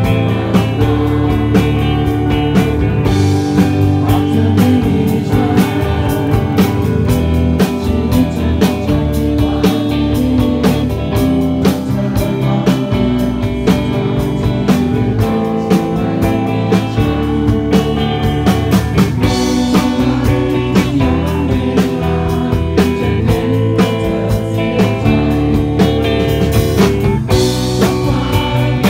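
Live rock band playing, with electric guitar, bass and drums and a singer on the microphone.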